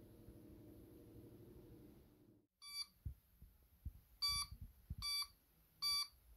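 Steady motor hum of a 220 V electric fan running from an inverter, which fades and stops about two and a half seconds in. Then the inverter beeps four times in short bursts, with a few low thumps, a sign that it has shut off because the 12 V 18 Ah battery has run down.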